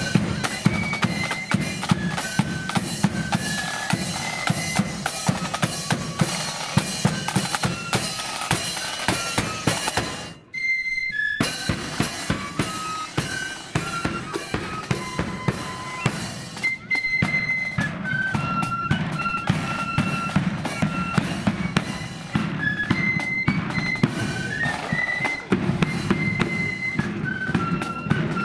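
Blood-and-thunder marching flute band playing a march: flutes carry the melody over snare drums and a bass drum. The music drops out briefly about ten seconds in, then carries on.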